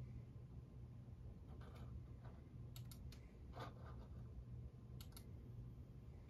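Faint clicks of a computer mouse button, about half a dozen, some in quick pairs, over a steady low hum.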